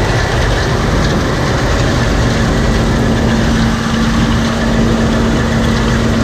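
Heavy engine running steadily, with a steady hum joining about two seconds in.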